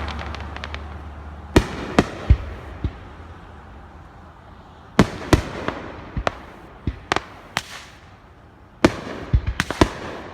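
Aerial fireworks bursting: sharp bangs in three clusters, the first a second and a half in, another about five seconds in, and a denser volley near the end.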